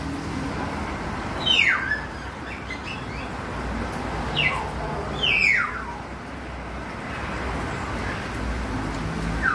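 Sharp chirping calls, each a quick downward slide in pitch, heard four times, over a steady low rumble.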